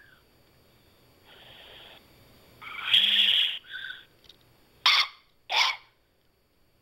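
Weird noises from an iPhone on a phone call: a few short bursts of odd noise, the loudest about three seconds in, then two sharp ones about a second later.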